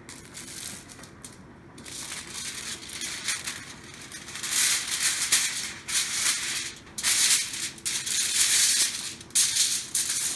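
Aluminum foil crinkling and rustling as a large sheet, joined at a rolled seam, is lifted, unfolded and pressed flat by hand, in a run of separate bursts that grow louder about four seconds in.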